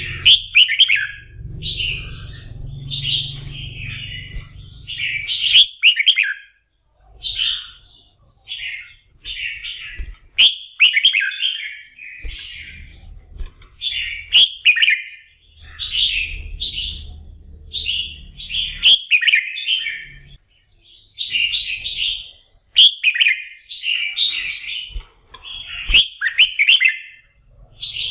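Red-whiskered bulbul singing a near-continuous run of short, quick warbled phrases with only brief gaps between them. This is the fiery 'kích lửa' song used to rouse competition bulbuls.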